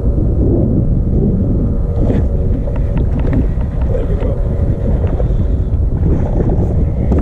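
Wind buffeting the microphone, a loud steady low rumble, with a few light clicks and knocks about two to three and a half seconds in.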